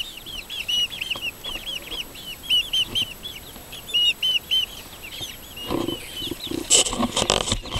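Chickens calling in a coop: a quick run of many short, high peeps. Near the end come some knocks and rustling as the camera is jostled among the birds.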